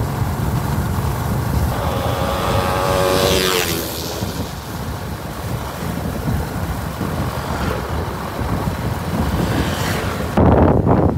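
Wind rushing over the microphone over the rumble of a moving vehicle's engine. About two seconds in, another vehicle passes, its engine note falling in pitch as it goes by. Near the end there is a louder burst.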